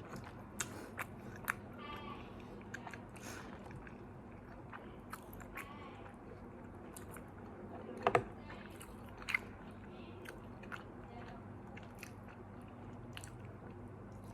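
Close chewing and biting of McDonald's fast food: scattered crisp crunches and small wet mouth clicks, the loudest about eight seconds in, over a steady low hum.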